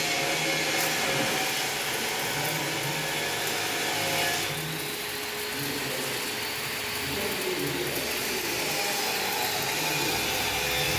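Steady hiss and hum of welding-workshop equipment at work during a practical demonstration. It changes character about four seconds in, when the high-pitched part of the noise drops away.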